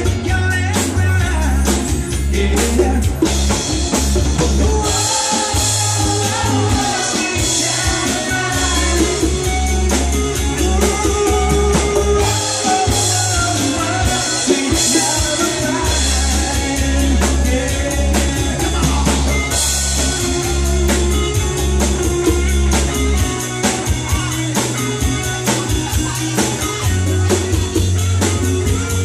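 Live band playing upbeat dance music with a steady drum-kit beat, keyboard, congas and electric guitar, and a voice singing over it.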